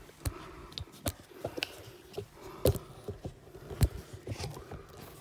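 Scattered small clicks and knocks, the sharpest at about one, two and a half and four seconds in: tools and parts being handled around a car's engine while reaching for the oil filter.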